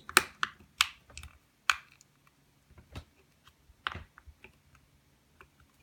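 Irregular sharp clicks and taps of ABS plastic case parts being handled and pressed together around a PS3 camera, about half a dozen in the first four seconds, then a few faint ticks.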